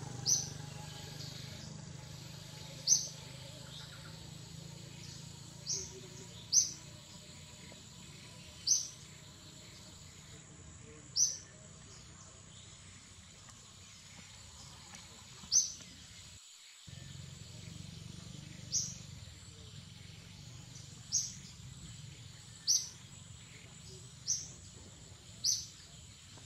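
A bird repeatedly giving a single short, high chirp, about a dozen times at intervals of two to three seconds, over a steady low background hum.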